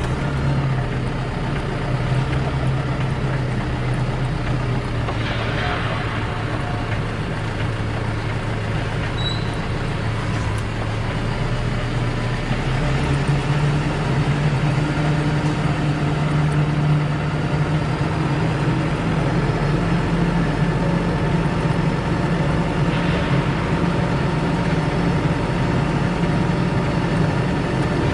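Forklift engine running steadily with a low hum that strengthens slightly about halfway through. Two brief hisses, one early and one near the end.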